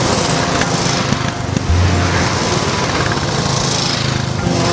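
Royal Enfield motorcycles riding past one after another, engines running with a rapid, even exhaust beat.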